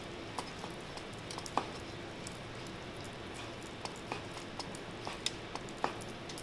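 Knife slicing through cooked chicken tenders on a wooden cutting board, with soft cutting sounds and a few light, scattered taps and clicks of the knife and tongs, over faint steady background noise.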